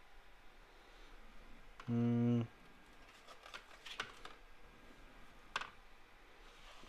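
Pages of an art book being turned and handled, a few soft rustles and clicks. About two seconds in, a short, level hum from a man's voice.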